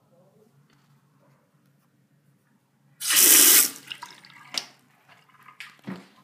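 Flush valve of an older URC urinal flushing: a sudden rush of water about three seconds in, loud for under a second and then dying away. A few sharp knocks follow near the end.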